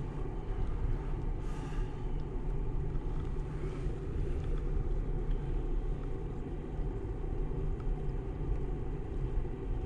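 Steady low outdoor rumble with no distinct events, only small rises and falls in level.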